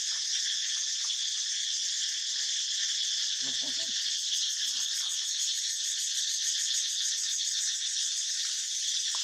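Steady, dense high-pitched insect chorus with a fine rapid pulse, and a brief lower sound about three and a half seconds in.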